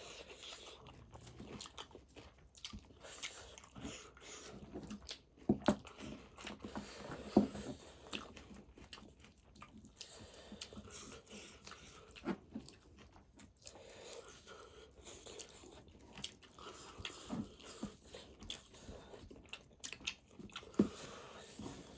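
Close-miked chewing and biting on pork feet: an irregular run of wet clicks and crackles, with a few louder bites along the way.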